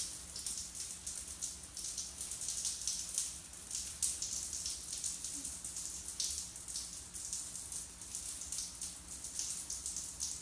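Steady hiss of spattering water, flickering in strength, with a faint low hum underneath.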